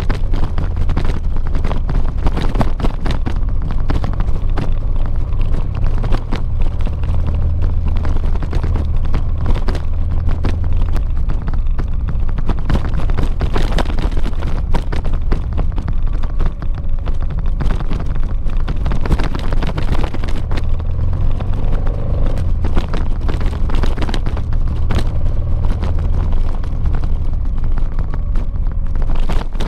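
Honda XL700V Transalp's V-twin engine running under way on a gravel track, its low drone swelling and easing as the throttle changes, over a constant rattle of small knocks and jolts.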